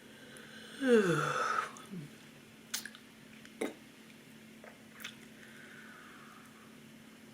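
A woman yawning aloud, her voice sliding down in pitch for under a second, followed by a few sharp clicks and smacks of the tongue and lips.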